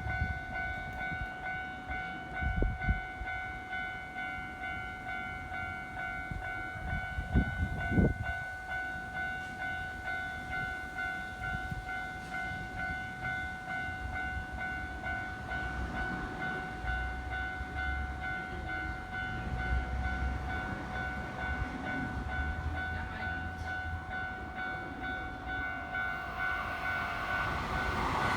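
Japanese level crossing warning bell ringing in a steady, evenly repeating electronic ding. Near the end the rumble of an approaching Hanshin 8000 series train grows louder.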